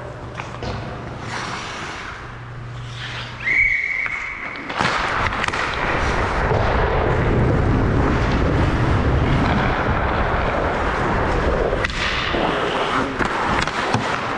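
Ice hockey rink noise: a referee's whistle blows one steady blast for about a second, a few seconds in. Loud, continuous scraping and clatter on the ice follows, with scattered sharp knocks.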